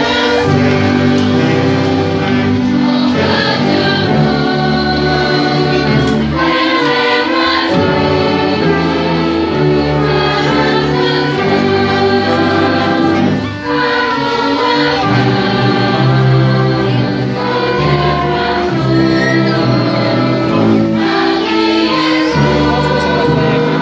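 Many voices singing a hymn together with a church orchestra of wind and string instruments, in long held chords with short breaks between phrases.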